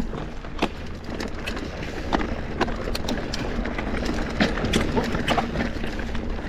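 A 100 mm travel cross-country mountain bike rattling over rocks, with frequent sharp clicks and knocks from the bike and tyres striking stones over a steady low rumble of rolling and wind noise.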